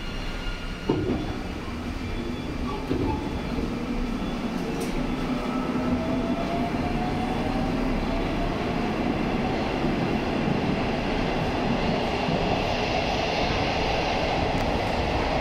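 81-760A Oka metro train picking up speed, its traction drive whine gliding upward in pitch over the running noise, which slowly grows louder. A sharp knock sounds about a second in.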